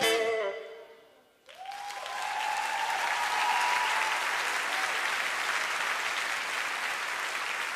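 The band's final chord rings out and fades within the first second, a brief hush follows, and then an audience breaks into sustained applause about a second and a half in.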